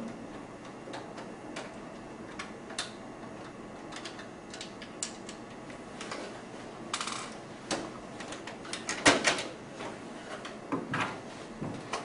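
Irregular light clicks and taps of a screwdriver and fingers on the plastic back panel of an HP LaserJet 1320 printer as its corner screws are taken out, louder and closer together from about seven seconds in.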